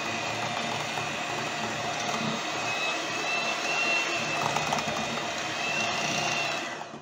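Electric hand mixer running steadily with a faint whine, its beaters whipping cake batter in a glass bowl, then switched off near the end.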